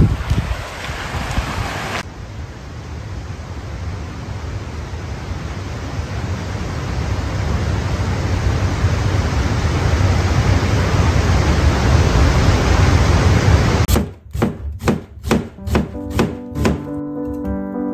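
Wind buffeting the microphone, a steady rumbling rush that slowly grows louder. About fourteen seconds in it gives way to a kitchen knife slicing an onion on a cutting board, quick cuts about three a second, with background music coming in near the end.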